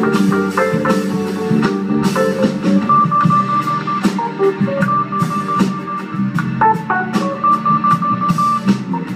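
A live jazz band playing: guitar over a drum kit, with a long held high melody note a few seconds in and again near the end.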